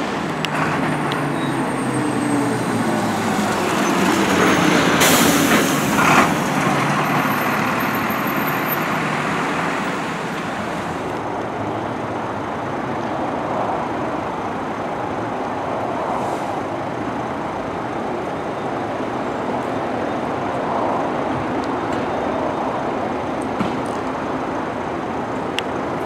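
Iveco fire engine's diesel engine running as the truck moves along the street, with a short loud rush of noise about five seconds in. Steady engine and road noise follows.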